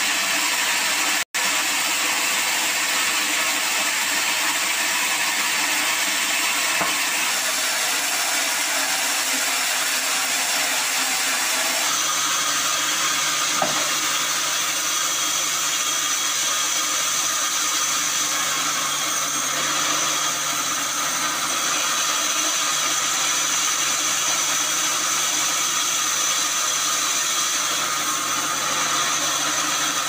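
Band saw running steadily while timber is fed through it: a continuous machine noise. It cuts out for an instant about a second in, and about twelve seconds in its sound changes, with a steady high whine and a low hum after that.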